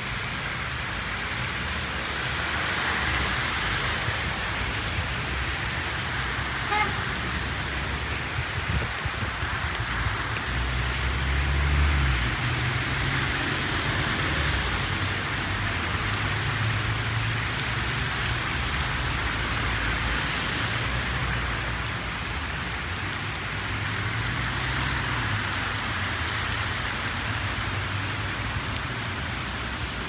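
Heavy rain falling steadily on the road and pavement, with cars passing on the wet road and a low rumble that swells and fades as they go by.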